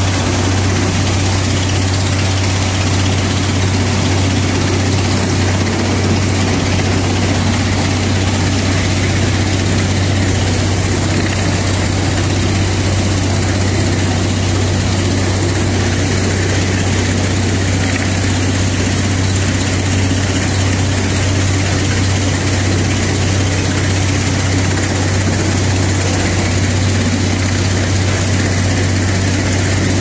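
Planalto PFP 600 x 800 forest wood chipper, a 505 hp machine, running steadily: a constant deep engine hum under a dense rushing noise, with a faint high whine that rises and falls slightly.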